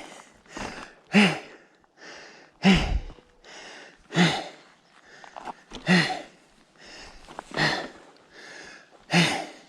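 A rider breathing hard with effort on an uphill climb: six loud, voiced exhales about every second and a half, with quieter breaths drawn in between.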